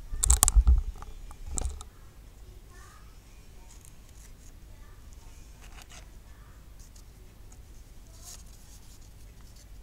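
Hands handling a small metal cap and paper close to the microphone: a burst of clicks and bumps in the first two seconds, then a few faint scattered clicks and paper rustles.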